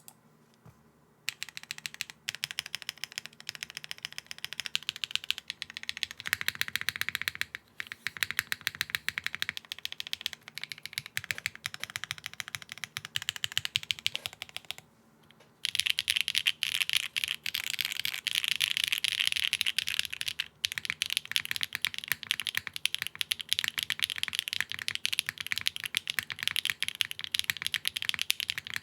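TGR 910 ME V2 mechanical keyboard with HMX Sunset Gleam switches on a polypropylene plate, unfoamed, being typed on: rapid, clacky keystrokes. Typing starts about a second in, stops briefly a little past halfway, then resumes faster and denser.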